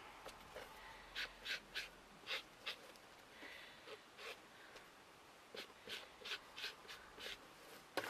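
Faint, irregular soft taps and scuffs of a foam ink-blending tool dabbed onto an ink pad and the edges of painted card, about a dozen short taps.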